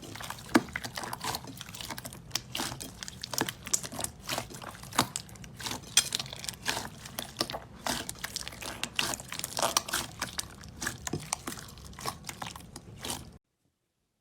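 Slime being squished and pressed, making dense, irregular wet clicks, pops and crackles that stop abruptly near the end.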